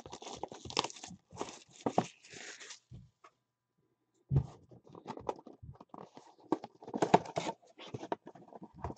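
Plastic shrink wrap torn and crinkled off a sealed trading-card hobby box for a few seconds. After a short pause come scattered clicks and rustles of the cardboard box being handled and opened.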